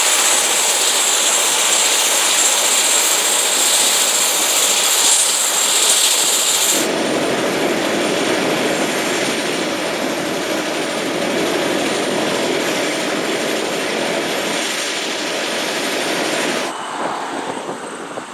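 Light single-engine turbine helicopter running close by: a high turbine whine over a steady rush of rotor and engine noise. About seven seconds in the sound switches abruptly to a lower, fuller rushing, and near the end it drops off abruptly again.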